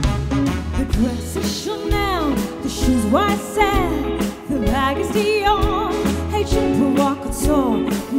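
Band music with a steady drum beat and a female vocalist singing, her voice entering about two seconds in with sliding, wavering notes.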